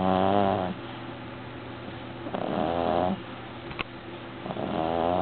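Devon Rex cat snoring loudly in its sleep: three drawn-out, pitched snores about two seconds apart.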